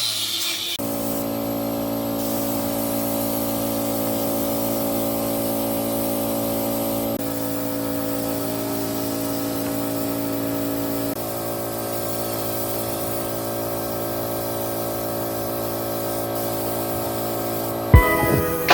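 Background music: sustained chords that change every few seconds, with sharp percussive hits starting near the end.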